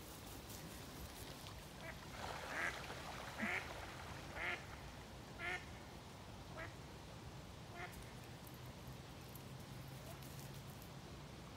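Ducks quacking: a series of about seven short quacks, roughly one a second, loudest a few seconds in and growing fainter.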